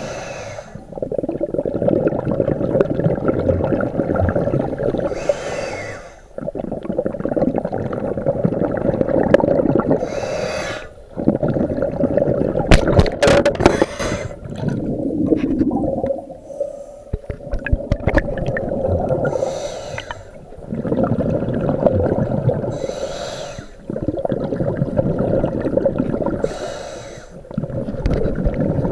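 Scuba diver breathing through a regulator underwater: a short hissing inhale, then a longer bubbling exhale, repeating about every four to five seconds. A cluster of clicks and knocks comes about halfway through.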